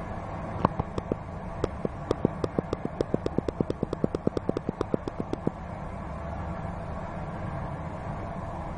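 Steady rushing noise of water gushing from a burst water main. From just under a second in until about five and a half seconds, a quick run of sharp clicks sounds over it, speeding up to about eight a second, then stops.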